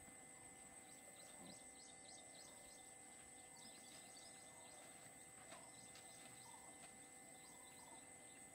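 Near silence: faint outdoor ambience with a steady high hum and scattered faint, short, high chirps, in clusters about a second in and again around four to five seconds in.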